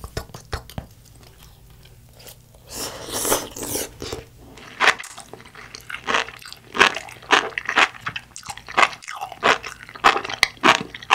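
Sea grapes (umibudo seaweed) being chewed close to the microphone: crisp little pops and crunches, sparse at first, then coming fast, several a second, from about halfway in.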